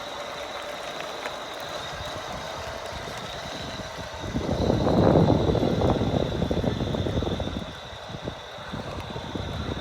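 Razor E200 electric scooter with its belt drive running, giving a steady high whine. A louder rush of noise swells about four seconds in and dies away about three seconds later.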